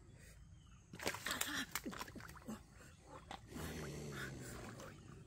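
Crocodile hissing and thrashing in shallow water as it lunges at a prodding stick, a loud noisy burst with sharp knocks about a second in, followed by a lower, drawn-out growl near the end.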